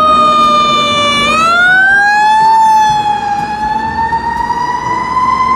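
Fire truck siren wailing: one loud, long tone that dips slightly, then climbs over about a second and a half and keeps rising slowly.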